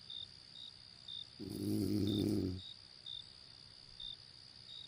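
A person snoring: one snore about one and a half seconds in, lasting about a second. Behind it, insects chirp steadily, about two short chirps a second, over a steady high insect drone.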